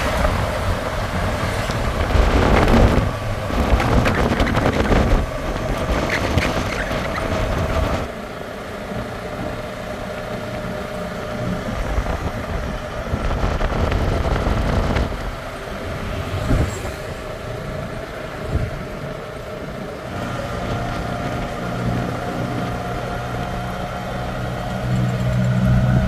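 Auto-rickshaw engine running with road and wind noise while riding along. The rumble eases about eight seconds in, and a steady low hum comes in around twenty seconds.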